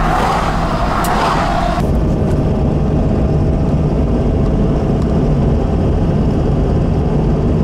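Pickup truck driving while towing a trailer, heard from inside the cab: a steady low engine and road rumble, with a hiss over it that cuts off abruptly about two seconds in.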